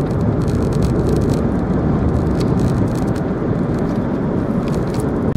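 Steady road and engine noise of a car driving, heard from inside the cabin: a dense, even rumble with scattered light clicks.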